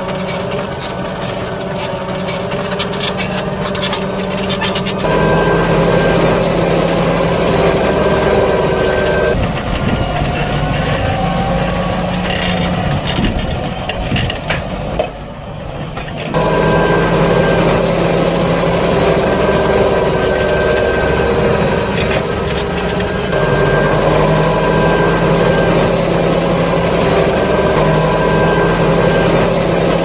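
Fendt 724 Vario tractor's six-cylinder diesel engine running steadily under load while pulling a four-furrow reversible plough. Its engine note shifts in pitch and level a few times, with a brief drop in level about 15 seconds in.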